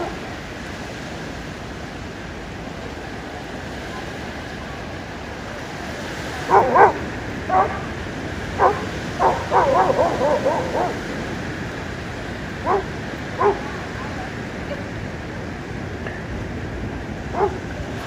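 A dog barking and yipping in short calls: a cluster of them starting about six seconds in and running for several seconds, then a few single barks later on. Under them is the steady wash of small surf on the beach.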